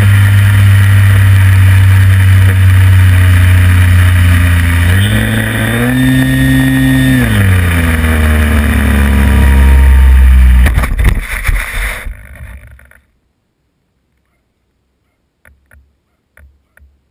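Electric motor and propeller of a small LiPo-powered RC plane, heard from its onboard camera: a steady, loud drone that rises in pitch for a couple of seconds around the middle as the throttle opens, then falls back. About eleven seconds in come a few sharp knocks and the motor sound dies away as the plane comes down on grass, leaving near silence with a few faint ticks.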